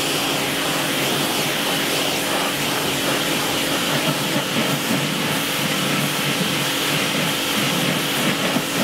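Pressure washer running at its highest setting, its jet spraying plain water onto a boat's fiberglass stern: a steady hiss with a constant hum underneath.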